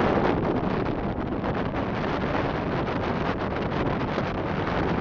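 Loud wind buffeting the microphone of a rigid inflatable boat running at speed, with the boat's running noise underneath as a steady rush.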